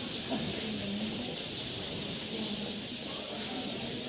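Outdoor street ambience: birds chirping steadily over a low murmur of voices.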